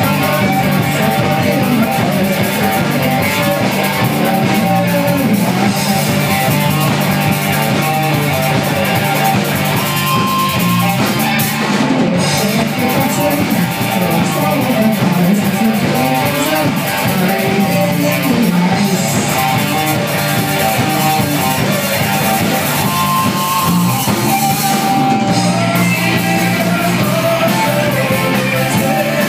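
Rock band playing live, an instrumental passage of electric guitars over a drum kit.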